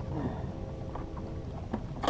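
Small outboard motor on a jon boat idling quietly, a steady low hum.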